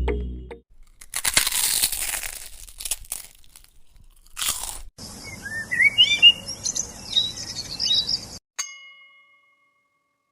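Crunching and rustling with small clicks, then a few seconds of bird chirps in quick rising notes, ending in a single ding.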